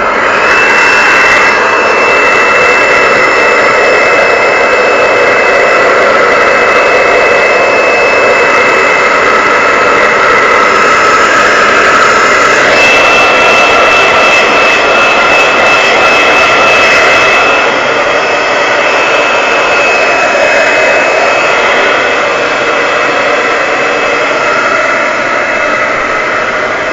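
Handheld hair dryer running on its hottest setting: a loud, steady rush of air with a high fan whine. The whine shifts slightly in pitch about 13 seconds in, and the sound gets a little quieter a few seconds later.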